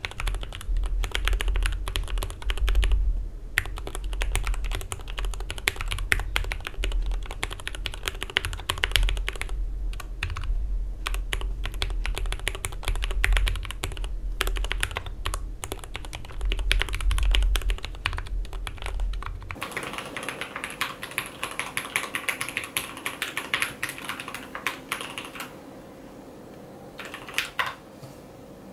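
Typing on a GMMK PRO mechanical keyboard with an aluminium plate and lubed, tape-modded Milky Yellow switches: fast continuous keystrokes with a deep thock. About two-thirds through, the sound turns thinner and brighter, then slows to a few scattered keystrokes near the end.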